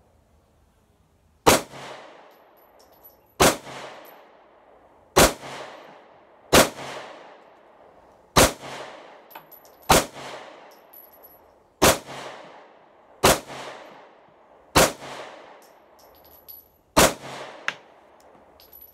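Ten single shots from a Sig P365 9mm pistol, fired one at a time about every one and a half to two seconds, each followed by a short ringing echo. The pistol cycles through the whole magazine without a failure to extract.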